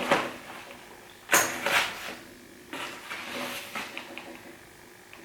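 Handling noise of a vinyl record package: a few short rustles and sliding scrapes of card and paper, the loudest about a second and a half in.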